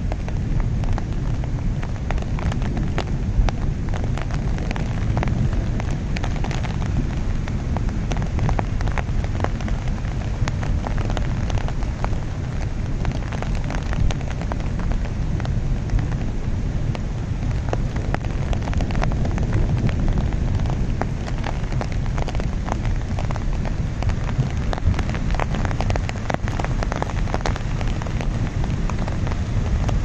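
Steady rain falling, with many sharp individual drop hits over a deep, constant rumble.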